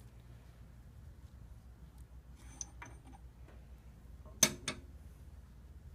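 Metal clinks of the strap cutter's spacers and blades being slid off the shaft and set down on the machine's metal head: a few faint ringing clinks about two and a half seconds in, then a louder sharp double clink about a second and a half later.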